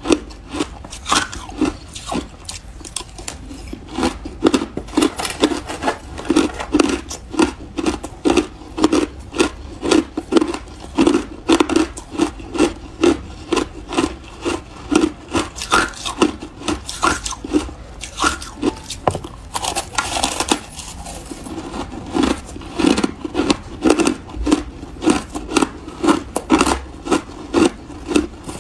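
Close-miked chewing of shaved and crushed ice: a steady run of wet crunches about two a second, with a short break in the chewing about two-thirds of the way through.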